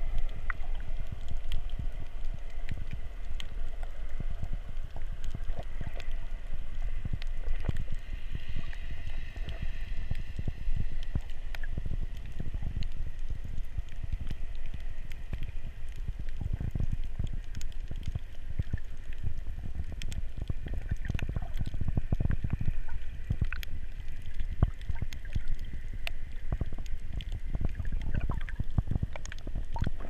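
Underwater sound picked up by a GoPro inside its waterproof housing: a muffled, uneven low rumble of water moving against the case, with scattered faint clicks and a thin steady hum higher up.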